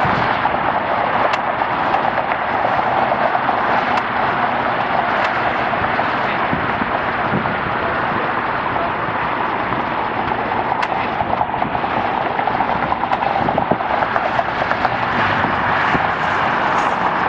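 Airliner jet engines running at taxi power, a steady rushing roar.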